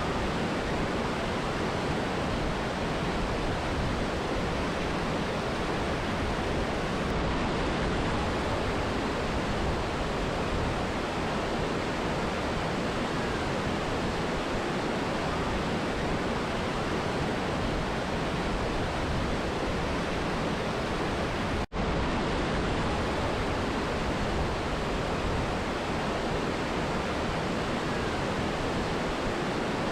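Mountain river and waterfall rushing, a steady, even roar of falling and flowing water, with a momentary dropout about two-thirds of the way through.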